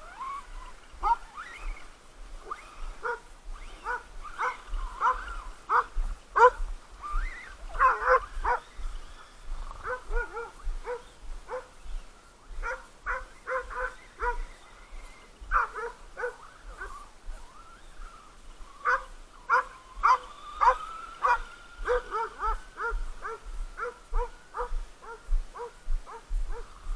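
Several dogs barking over and over, many short barks in quick runs, as they chase a radio-controlled car. A thin steady whine runs under the barking for a few seconds around twenty seconds in.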